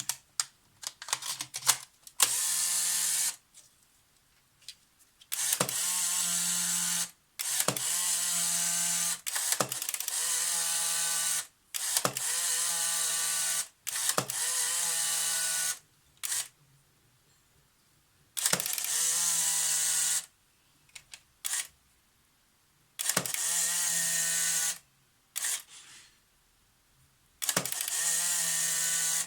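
Polaroid SX-70 instant camera being fired over and over. Each release gives sharp shutter clicks, then the motor runs for about one to two seconds to recock, about nine times in all. The shutter is misbehaving: it opens and closes very fast, like a machine gun, before the exposure works.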